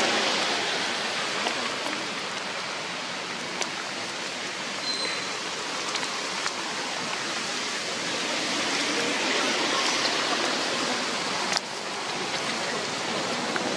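Steady rushing of water, with a few faint clicks and one sharper click near the end.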